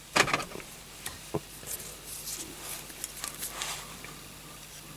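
Pliers working on a small diecast metal tow bar to straighten it: a scratchy scrape at the start, a sharp click a little over a second in, then faint scrapes and rustles.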